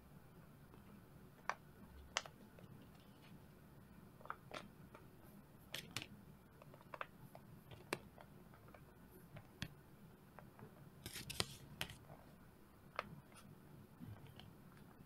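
Silicone pop-it Tetris puzzle pieces being picked up and fitted into a plastic tray: scattered light clicks and taps, with a quick cluster of taps about two-thirds of the way through.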